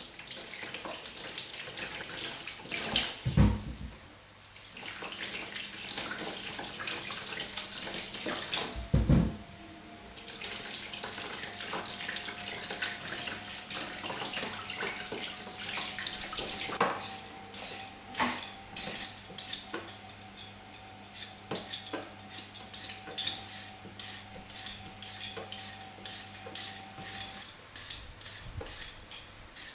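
Tap water running and splashing into a plastic washing-up bowl as potatoes are scrubbed by hand, with a couple of dull thumps. From about halfway through, a hand peeler scrapes repeatedly on a raw potato, stroke after stroke.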